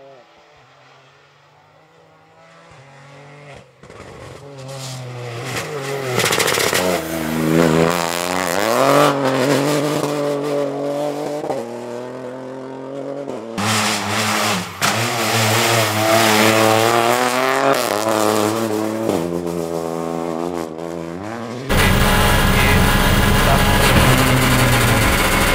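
Opel Corsa Rally4's turbocharged three-cylinder engine at full throttle as the rally car approaches and passes, rising in pitch through each gear and dropping at each shift. About 22 seconds in, the sound changes abruptly to the louder, steady engine and road noise heard inside the cabin.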